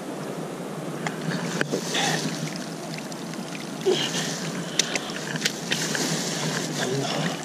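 Steady rush of flowing water at the spillway, with scattered clicks and rustles of footsteps and handling on the wet, grassy bank.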